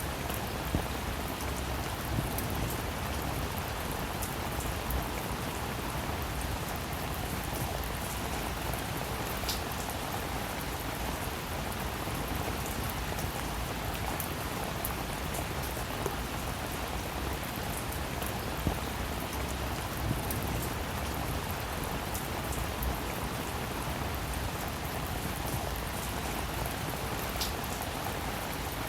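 Steady rain falling, with individual drops ticking sharply against a surface here and there.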